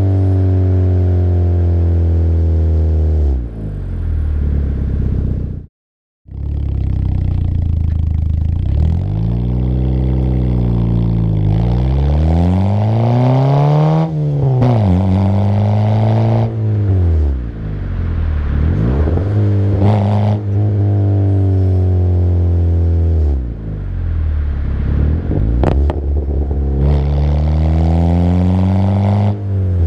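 Peugeot 206 exhaust heard at the tailpipe under way: the engine's note climbs as it accelerates and drops away when the throttle is lifted, over and over. The sound cuts out completely for a moment about six seconds in.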